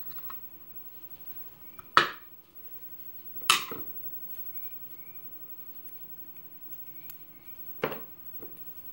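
Small metal lock parts and tools clinking as they are handled: three sharp clinks about 2, 3.5 and 8 seconds in, with a few softer ticks between them.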